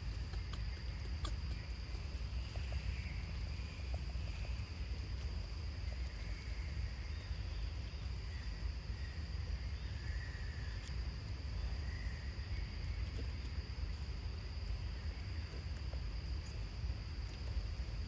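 Outdoor ambience: a steady high insect drone over a constant low rumble, with a few faint chirps and small clicks.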